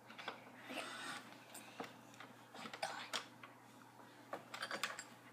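Faint, irregular clicks and taps.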